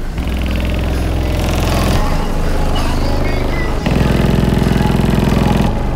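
Bass-heavy music played loud through a single Sundown Nightshade 24-inch subwoofer in a pickup truck, heard from outside the cab. Deep bass notes change about every two seconds, with a rapid buzz over them.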